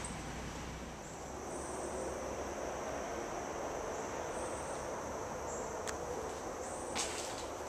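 Insects buzzing in high, steady tones that fade in and out, over a steady outdoor background hiss. A sharp click about six seconds in and a few light knocks near the end.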